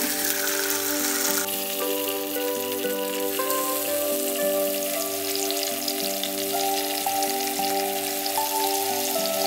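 Marinated karimeen (pearl spot) fish pieces sizzling and crackling as they shallow-fry in hot coconut oil, with more pieces laid into the pan one after another. Soft background music with held notes plays underneath.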